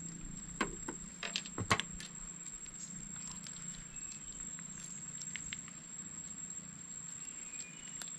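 Light drizzle pattering, with a handful of sharp clicks and taps between about half a second and two seconds in, and a faint steady high-pitched whine throughout.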